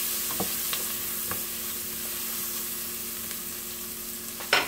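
Diced onions and garlic sizzling in butter and olive oil in a ceramic-lined pan, with a wooden spoon scraping and tapping the pan a few times in the first second or so. There is a single sharp knock near the end.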